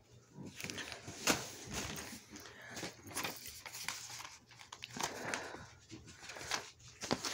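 Faint, irregular rustling and small knocks of handling, with plastic zip-lock bags of dried herbs crinkling as they are held and put down.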